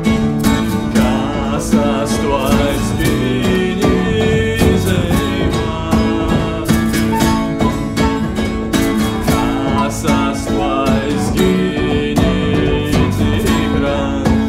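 Acoustic guitar playing a neofolk song with a steady plucked rhythm over low held notes, with a voice singing over it in places.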